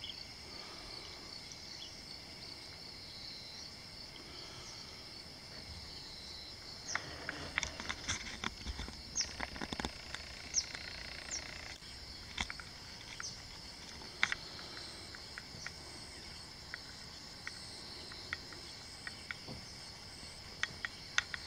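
Steady high-pitched insect chorus with a pulsing trill. Scattered clicks and rustles and a few short high chirps come between about 7 and 12 seconds in, thinning out afterwards.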